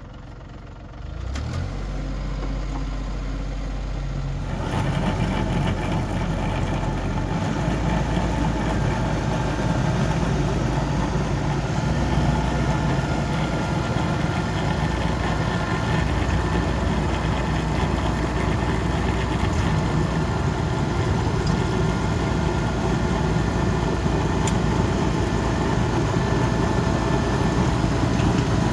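Small tractor engine revving up about a second in, then a few seconds later the PTO-driven rear snowblower comes in, auger and fan spinning with the engine held at high throttle, a loud, steady machine noise.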